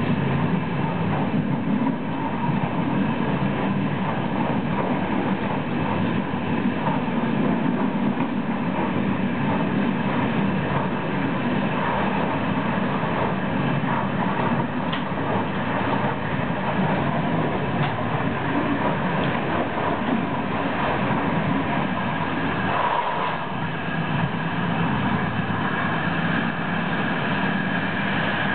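Train running along the rails at speed, heard from on board. A steady rumble and rolling noise with a faint steady whine.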